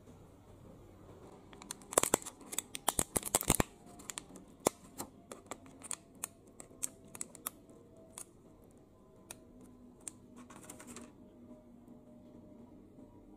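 Thin clear plastic food container crackling and clicking as a sticky rice cake is pulled out of it by hand. A dense run of sharp crackles comes about two seconds in, then scattered clicks, and a short rustle about ten and a half seconds in.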